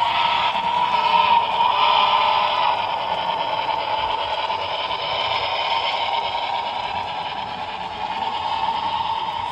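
HO scale model train running, its locomotive sound decoder playing a steady running sound through the small speaker, a little louder in the first few seconds and then easing off.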